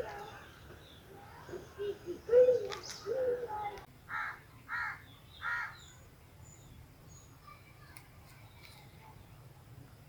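A crow cawing three times in quick succession, each caw short and evenly spaced. Before the caws come a few louder, low, wavering sounds.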